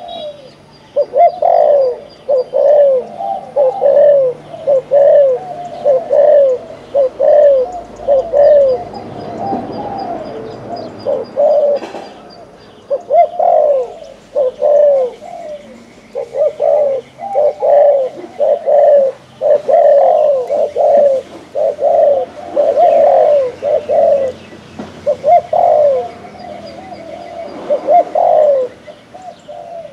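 Caged spotted dove cooing: loud runs of short, rapid coos, several a second, broken by brief pauses. This is the 'gù' cooing that Vietnamese dove keepers prize.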